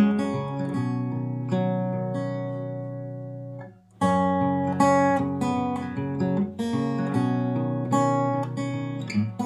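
Acoustic guitar music, plucked and strummed, with a brief pause about four seconds in before it starts again.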